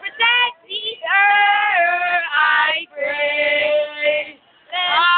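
A young woman singing loudly in a high voice, holding long drawn-out notes of about a second each, three in a row with short breaks between.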